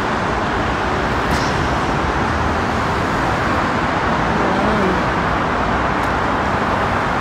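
Steady road traffic noise from the highway: a continuous roar of passing vehicles, with no single vehicle standing out.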